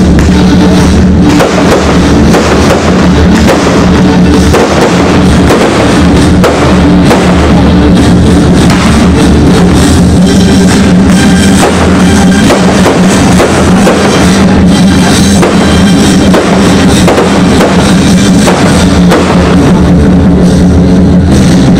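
Loud music with a heavy drum beat, the recording running near full level throughout.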